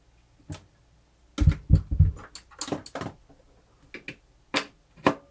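A series of sharp clicks and knocks from handling the mixer and pushing its plug in, with a cluster of heavier thumps about one and a half seconds in. The mixer's motor does not start: the outlet is switched off.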